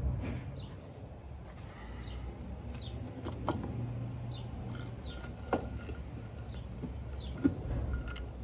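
A few light metal clinks and knocks as the Yamaha XT350's cylinder head is worked by hand up off the cylinder and over the cam chain. Small birds chirp in quick short calls throughout, over a low steady hum.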